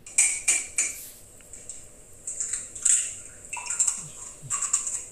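Kitchen dishes and metal utensils clinking and scraping on a counter: three quick clinks in the first second, then more clattering in short clusters.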